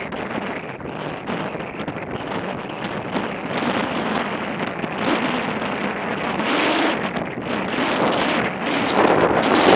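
Wind buffeting the microphone of a camera on a moving motorcycle, a rough rushing noise that rises and falls in gusts and grows louder in the last few seconds.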